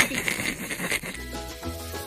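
Background music with a steady bass line coming in about a second in, after a second of rustling noise.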